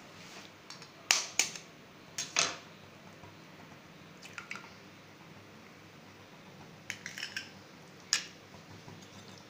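An egg being cracked on the rim of a bowl and broken open: a few sharp knocks and cracks in the first two and a half seconds, then scattered lighter clicks of shell and bowl.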